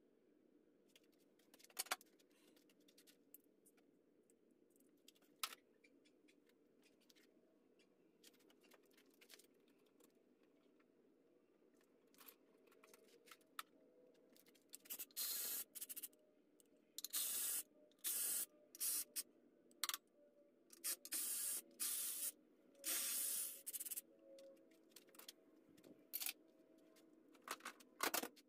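A run of about eight short hissing spray bursts in the second half, separated by brief pauses, with scattered light metal clicks and taps of tools on the VW air-cooled engine case before them.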